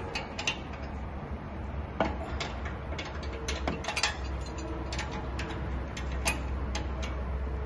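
Hand socket ratchet clicking in short, irregular runs as a bolt in a steel beam is turned, over a steady low hum.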